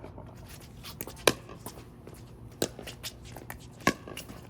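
A few sharp clacks of hard game pieces striking one another during play, the loudest about a second in and again near four seconds, with fainter knocks between.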